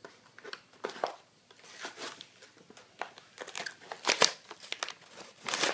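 Toy blister-pack packaging being torn open and handled: irregular crinkling and ripping of plastic and card, loudest about four seconds in and near the end.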